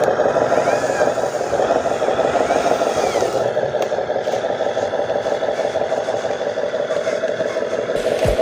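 Radio-controlled truck's electric drive motor and gearbox running with a steady, rough whine.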